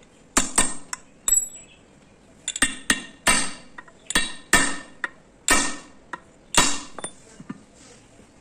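Hammer blows on a steel punch held against the rivets of an Ashok Leyland brake shoe: about a dozen sharp, ringing metal-on-metal strikes in irregular groups, some in quick pairs.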